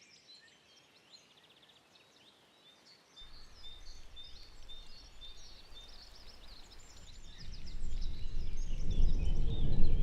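Forest ambience: many small birds chirping and singing. A low rushing noise fades in about three seconds in and grows much louder near the end.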